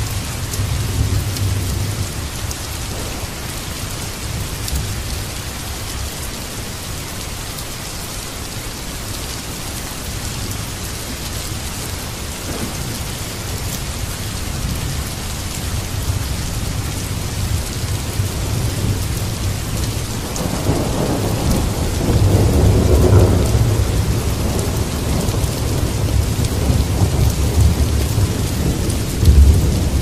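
Heavy rain pouring onto flooded ground, a steady hiss of drops splashing into standing water. A low rumble of thunder swells about two-thirds of the way through.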